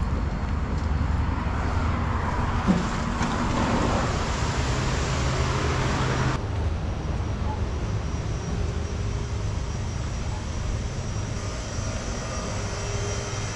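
Walking in through a shop's entrance: a loud rushing noise over a low rumble, with one sharp click about three seconds in. The rushing cuts off suddenly about six seconds in, leaving the quieter, steady hum of the store's interior.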